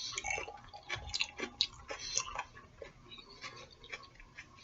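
A person chewing food close to the microphone, with soft, irregular clicks and wet mouth noises that thin out in the second half.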